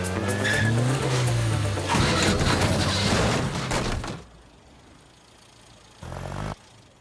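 Cartoon car engine revving, its pitch rising, then a loud rattling noise that cuts off suddenly about four seconds in, with music.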